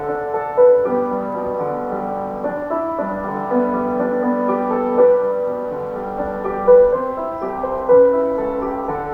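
Community wired-broadcast (yūsen hōsō) loudspeaker chime playing a school song as a keyboard-like melody of held notes: the 5 p.m. time signal.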